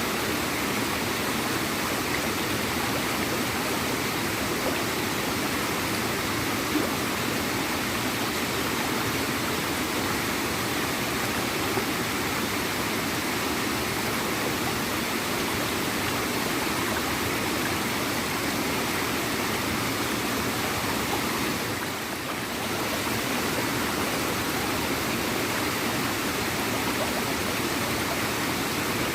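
A small, quiet waterfall gurgling and splashing in a steady, even rush of water, with a brief slight lull about three-quarters of the way through.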